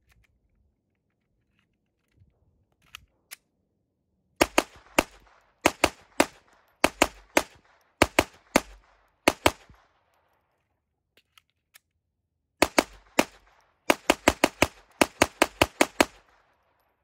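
Glock 44 .22 LR pistol firing round-nose rimfire ammunition: a string of sharp shots, many in quick pairs, after a couple of faint clicks. The firing stops for about three seconds with a few faint clicks, then starts again and speeds up to a rapid run of shots near the end.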